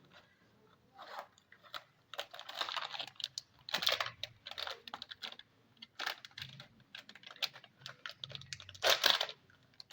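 Irregular clicks, taps and short scraping or rustling noises of hard-drive and DVR parts being handled by hand, with the loudest handling noise about four seconds in and just before the end.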